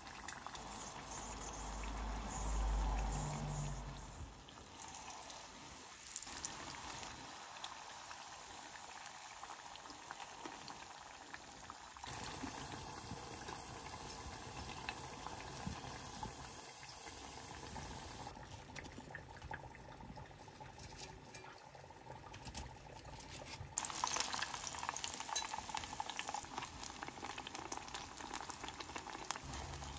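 Tempura of wild mushrooms and vegetables deep-frying in oil: a steady bubbling crackle with fine pops, changing abruptly several times as separate stretches are joined. A low rumble swells and fades about two to four seconds in.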